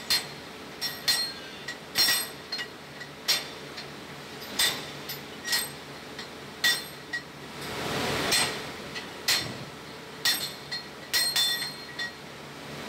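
Tumbling rapping hammers of an electrostatic precipitator dropping one after another onto their anvils as the drive shaft turns, knocking dust off the electrodes. The strikes are sharp metallic clanks that ring briefly, coming irregularly about once a second, sometimes two or three close together.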